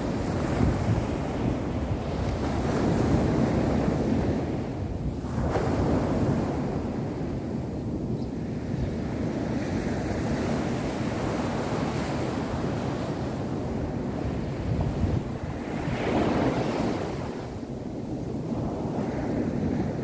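Small ocean waves breaking and washing up a sandy beach: a continuous rush of surf that rises and falls as each wave breaks, loudest a few seconds in and again near the end. Wind buffets the microphone underneath.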